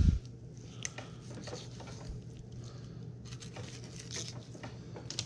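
Knife scraping and slicing along freshwater drum skin and scales on a wooden cutting board: scattered short rasping scrapes and small clicks, after a low thump at the very start.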